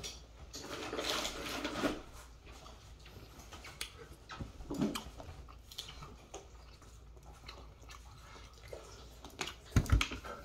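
Chewing and biting on dried deer meat, with a few sharp clicks and a low thump near the end.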